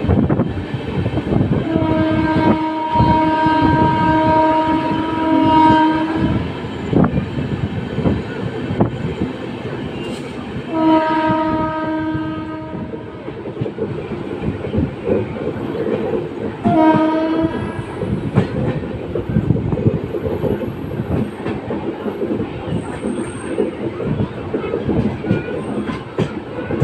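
WAP-7 electric locomotive horn sounding three times on one steady pitch: a long blast of about four seconds, then one of about two seconds, then a short one. Under it runs the continuous rattle and clickety-clack of an LHB passenger coach running over the track.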